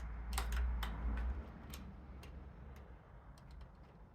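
Light, irregular clicks and taps of a hand tool against the bike's metal fittings as a screwdriver or Allen key is tried on a bolt, with a low handling rumble in the first second or so.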